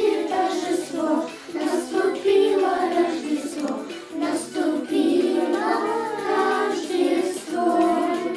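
A group of children singing a Christmas song together, with a backing track playing under them.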